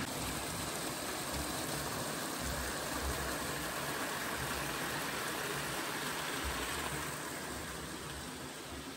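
Sulphur hot spring water running and splashing down the rock into the cave pool, a steady rushing that eases a little near the end.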